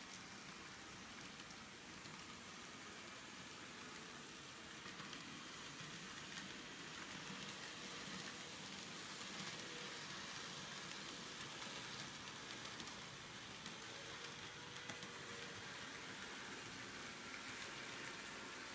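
Faint steady rattle of an N scale model freight train's wheels rolling over Kato Unitrack, with a thin motor whine under it, a little louder after about five seconds.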